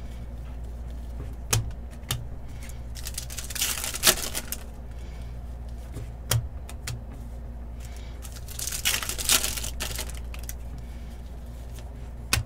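Trading cards being handled at a table: scattered light clicks and taps and a few brief swishes of cards sliding, over a steady low hum.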